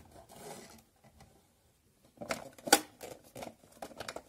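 Clicks and knocks of a hard plastic toy cage being handled and shut, a few sharp clicks starting about two seconds in.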